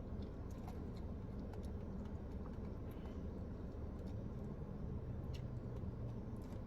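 Steady low rumble of road noise inside a moving car's cabin, with a few faint clicks.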